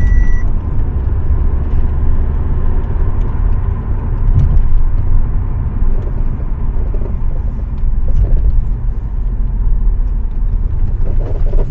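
2015 Audi A4 driving over a long dip, with steady road rumble and squeaking and creaking from the front suspension. The mechanic puts the noise down to worn, cracked rubber bushings in the front control arms.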